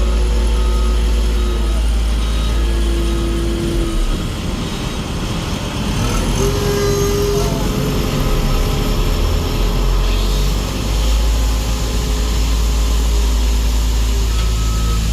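Heavy diesel road-paving machinery running steadily with a deep engine rumble, with short repeated beeps near the start and again near the end.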